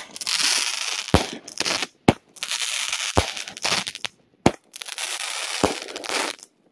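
500-gram consumer fireworks cake firing shot after shot, one about every two and a half seconds. Each sharp bang is followed by about a second and a half of dense crackling, with a lower thump partway through it.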